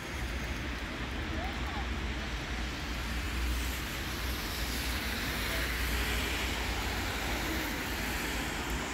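Steady outdoor street noise: a hiss of traffic on wet roads, with wind rumbling on the microphone.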